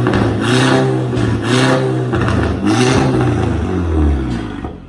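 Turbocharged TFSI engine of an Audi A3 with an aftermarket downpipe and 2.5-inch straight pipe (no muffler), revved up and down about four times in quick succession, very loud, then settling back toward idle at the end.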